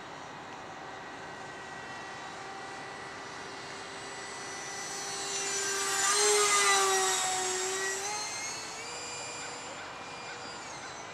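Whine of a radio-controlled jet's 70 mm electric ducted fan as the model flies past. It grows louder to a peak about six seconds in, then drops in pitch and fades as the jet moves away.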